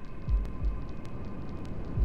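Recorded heartbeat sound, one low double thump (lub-dub) about a third of a second in, over a steady hair-dryer white noise with a faint whine.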